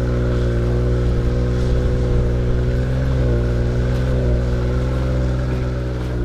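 BMW X5 E53's three-litre petrol inline-six engine running at steady revs under load while the SUV drives through snow. The pitch wavers slightly about three seconds in.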